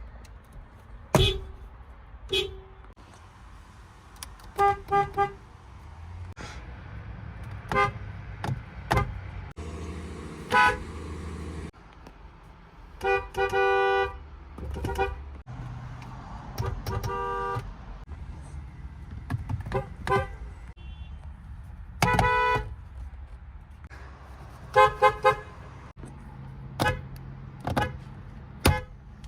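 Nissan and Infiniti car horns honked one car after another: about fifteen toots, mostly short, some in quick doubles and triples and a couple held for about a second, each a two-note horn chord.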